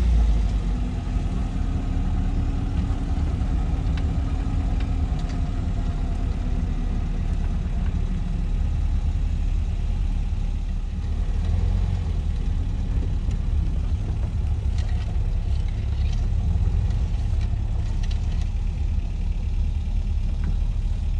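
A classic MG sports car's engine running steadily at low speed, heard from inside the cabin as the car rolls slowly along, with a deep rumble.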